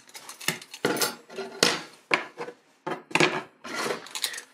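Brass-and-steel astrolabe being taken apart by hand on a wooden workbench: a run of separate clinks, scrapes and knocks as the metal parts are lifted off and set down on the wood.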